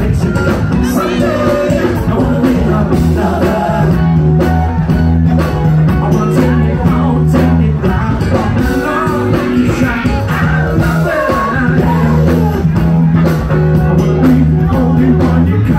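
Live funk/R&B band music: electric guitar over a steady bass line and drum beat, with a woman singing into a microphone.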